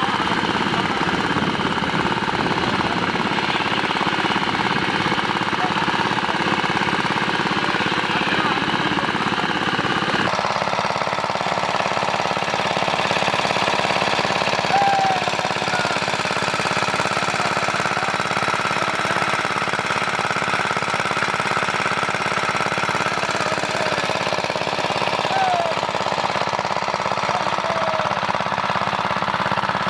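An engine running steadily with a rapid, knocking beat. Its sound changes abruptly about ten seconds in.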